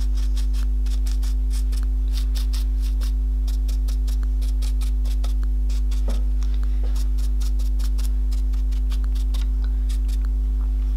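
Steady electrical mains hum with a buzz, the loudest sound. Over it, irregular short scratchy strokes of a dry paintbrush dabbing pigment onto a stiffened-fabric plaque.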